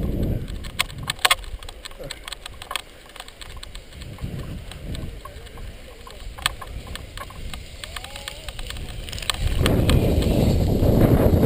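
Gusting wind buffeting the microphone, dropping away for several seconds with scattered sharp clicks and knocks, then coming back strongly near the end.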